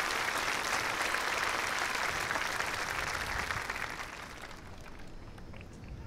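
Crowd applauding, dying away about four to five seconds in.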